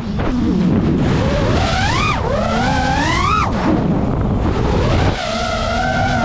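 FPV quadcopter's brushless motors whining over propeller wash, the pitch rising and dropping sharply with each throttle punch, then holding steadier near the end.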